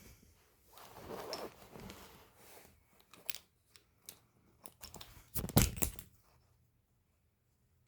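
Hand-work noise of materials being handled and cut: a rustling, scraping stretch, a few sharp clicks, then a louder cluster of knocks and clatter about five and a half seconds in.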